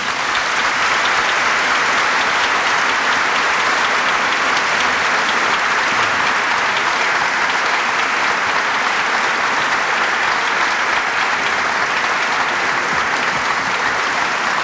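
Sustained applause from a seated assembly: many people clapping steadily, without a break.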